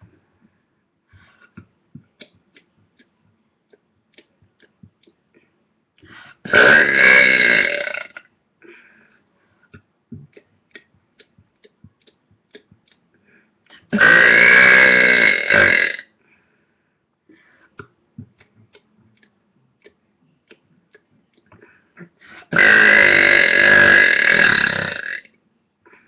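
A person burping very loudly, three long drawn-out burps of about two seconds each, spaced roughly eight seconds apart.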